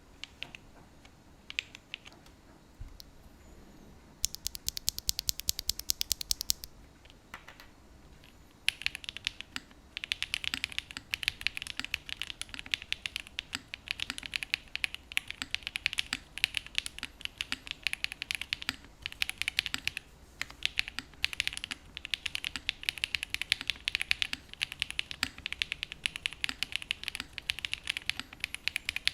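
Typing on a Tofu60 2.0 mechanical keyboard with linear switches (FBB F3 build). A few single keystrokes come first, then a fast, even run of keystrokes for a couple of seconds. From about nine seconds in there is steady, fast typing with only brief pauses.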